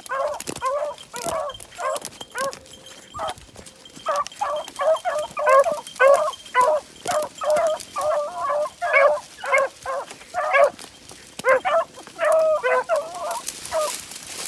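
Beagles baying on a rabbit's trail in full chase: a steady run of short, pitched hound calls, a couple or more a second, with a brief lull about a quarter of the way in.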